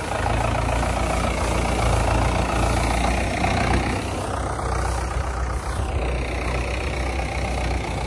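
Mahindra 475 DI tractor's four-cylinder diesel engine running steadily with a low, even drone.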